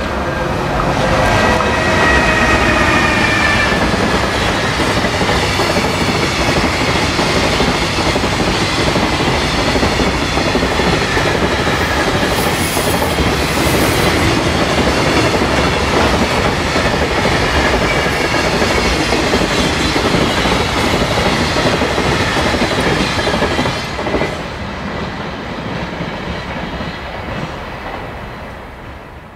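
JR Freight EF210 electric locomotive and its long container freight train passing. A whine with several pitches comes from the locomotive in the first few seconds. Then comes the steady clickety-clack of the container wagons' wheels over the rail joints, with a brief high squeal around halfway. The sound fades over the last few seconds as the train goes by.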